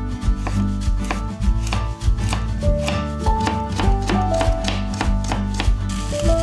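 Kitchen knife chopping carrot on a cutting board, a quick run of sharp knocks a few per second, over background music with sustained notes.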